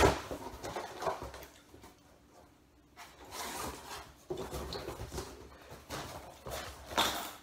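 Cardboard shipping box being opened by hand: a sharp tearing sound at the start, then the flaps and contents rustling and scraping in spurts, with a short quiet pause about two seconds in and a few louder tugs near the end.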